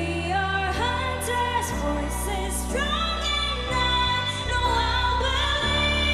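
Pop song with a female lead voice singing long notes that slide up and hold, over a backing track with a heavy bass line.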